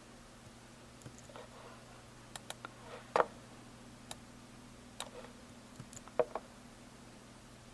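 Clicks of a computer keyboard and mouse being operated: a dozen or so short, irregular clicks, the loudest about three seconds in and again about six seconds in, over a faint low steady hum.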